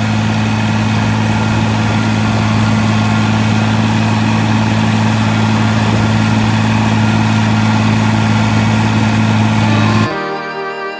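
Farm machinery engine running loud and steady at a constant speed, with a deep even hum under it. About ten seconds in it cuts off abruptly and fiddle music begins.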